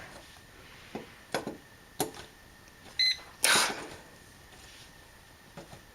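Voltage tester giving a short electronic beep about three seconds in, among a few light clicks, then a brief louder rustle.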